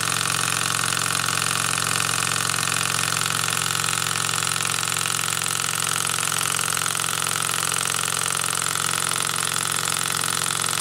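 PM Research Peanut Rider Stirling hot-air engine running steadily on its burner flame, an even mechanical running sound with no change in speed.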